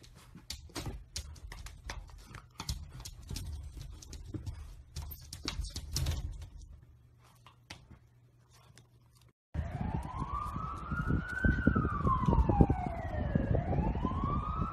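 Faint scrabbling and tapping of a puppy's paws for the first several seconds. After a sudden cut, a loud siren wail takes over: its pitch rises, falls and rises again over a low rumble.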